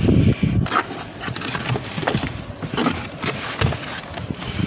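Irregular knocks, thumps and rustles of salvaged items being handled and dropped into a box, loudest at the very start.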